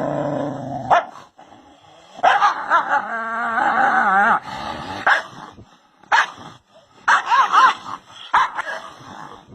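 A dog barking at its own reflection in a mirror: a string of short barks, with a longer wavering whine about two to four seconds in.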